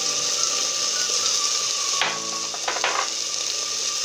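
An onion, garlic and chili-paste aderezo sizzling in hot oil in a clay pot: a steady frying hiss. About two seconds in come a few short scrapes of a wooden spoon stirring it.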